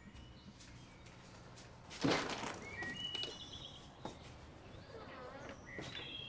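A brief loud thump about two seconds in, then birds chirping outside in short high notes.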